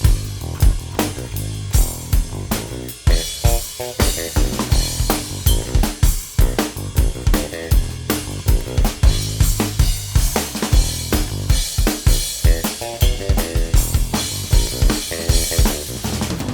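Drum-driven music played over a sound system: kick drum, snare and hi-hat on a steady beat of about two hits a second, over deep bass.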